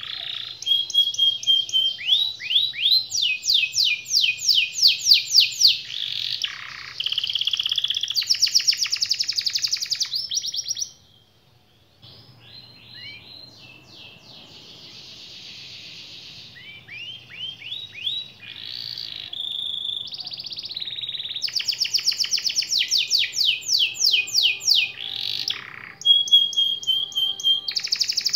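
Domestic canary singing a long song of fast trills and rolling runs of repeated high notes. It stops briefly about eleven seconds in, sings more softly for several seconds, then breaks into loud fast trills again near the end.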